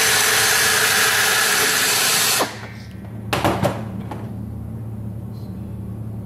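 Pneumatic air drill spinning a valve-seat grinding stone in the intake valve seat of a Lycoming O-320 cylinder, a loud steady hissing whir that stops about two and a half seconds in. After that a steady low hum continues, with a few clicks and knocks as the tool is set down and the stone lifted out.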